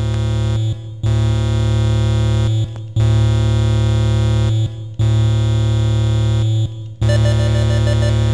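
Lo-fi 4-bit chiptune synthesizer music from the NESSY, a homemade NES-style MIDI sound module: sustained low chords that change about every two seconds, with a fast repeating high arpeggio coming in near the end.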